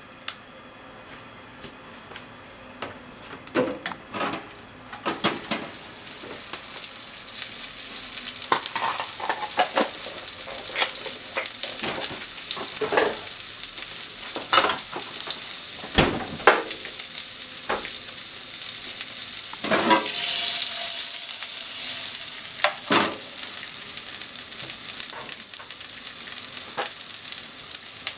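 Butter melting and sizzling in a nonstick frying pan. The hiss starts about five seconds in and builds as the butter foams, and a few light knocks come through it.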